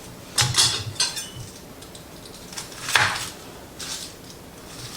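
A kitchen knife knocking on a cutting board as an onion is cut and peeled: a few separate sharp knocks, clustered about half a second in, then again around three and four seconds.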